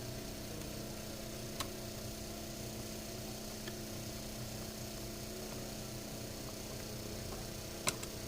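Steady electrical hum, with a light click about a second and a half in and a sharper click near the end.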